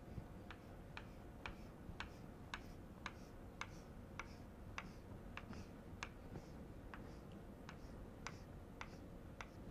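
Chalk tapping on a blackboard as short hatching strokes are drawn, one faint sharp tap about every half second over a low room hum.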